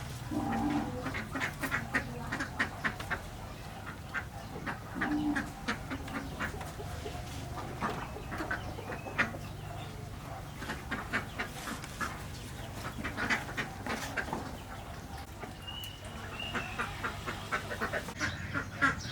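Birds calling in clusters of short, rapid notes throughout, over a faint steady low hum.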